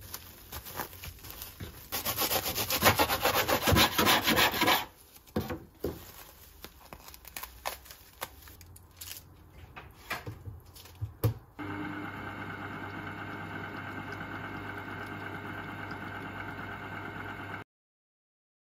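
Cling film crinkling, then a knife sawing through a cling-film-wrapped sandwich on a wooden cutting board in a few seconds of rapid rasping strokes. Small crinkles and clicks follow, then a steady electric hum that cuts off suddenly near the end.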